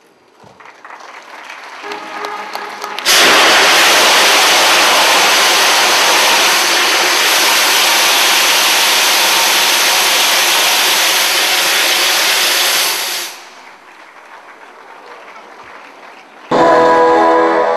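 Confetti launchers firing: a loud, even hiss that starts suddenly about three seconds in, after building applause, and runs for about ten seconds before dropping away. Brass band music starts abruptly near the end.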